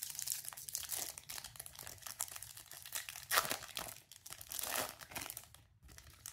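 Foil wrapper of a Topps Chrome Platinum baseball card pack being torn open and peeled apart by hand: steady crinkling, with louder rips about three and a half and nearly five seconds in.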